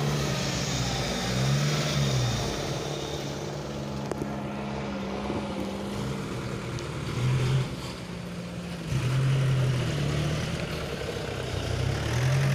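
Dump truck engine running, its revs rising and falling several times as the tipper bed is raised to dump a load of earth.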